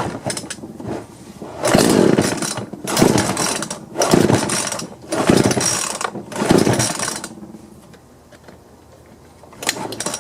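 Husqvarna 120 chainsaw's recoil starter being pulled about five times in quick succession, the rope rewinding and the two-stroke engine turning over without starting. The pulls test a starter-pulley spring that was flipped so it seats properly and the rope stops slipping.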